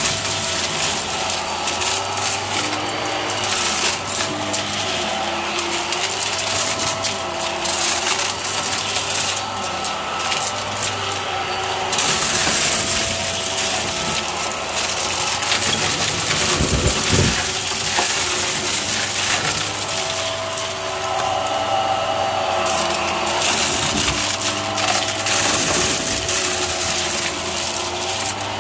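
Hart stick vacuum running with a steady motor hum while sucking up sequins, confetti and balloon scraps from carpet, the hard little pieces rattling and crackling through the nozzle and into the dust cup.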